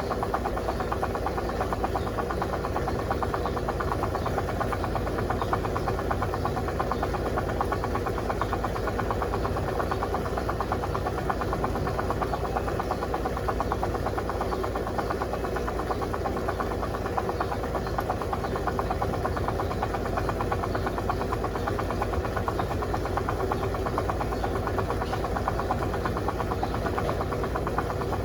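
Electrolux LTC07 compact top-loading washing machine running steadily, with a fast, even mechanical vibration that does not change, late in its cycle after draining has begun.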